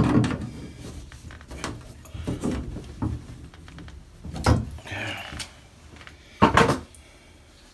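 Tools clanking and scraping against the brass diverter stem of a three-handle shower valve as it is worked tight, a handful of separate knocks and scrapes with the loudest about two-thirds of the way in.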